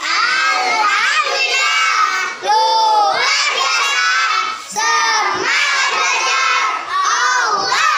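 A class of young boys shouting a reply in unison to the teacher's greeting, in about four loud chanted phrases with brief breaks between them.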